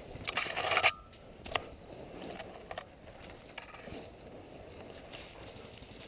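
Conifer branches brushing and scraping past the camera and gear in a loud rush near the start, then footsteps through dry fallen leaves with a few sharp clicks.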